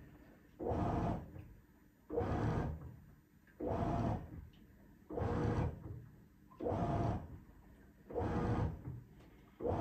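Avanti top-load washing machine's impeller agitating a load in soapy water: a rhythmic swish-and-churn of motor and sloshing water, six strokes about a second and a half apart, each lasting under a second with quieter pauses between.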